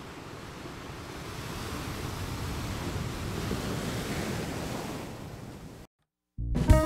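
Sea surf: an even rush of breaking waves that slowly swells and then fades away, cutting off about six seconds in. Plucked guitar music starts right at the end.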